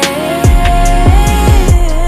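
Background R&B song: a held sung note over the backing track, with bass and drum hits coming in about half a second in.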